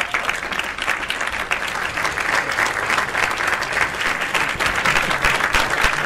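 Applause: many hands clapping at once, a steady dense patter that grows slightly louder toward the end.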